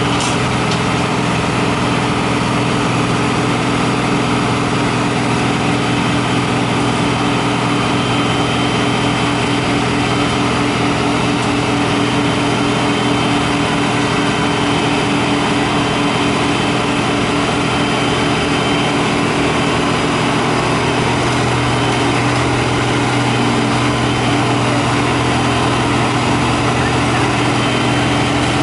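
Tracked asphalt paver's diesel engine running steadily as the paver crawls slowly up onto a low-loader trailer.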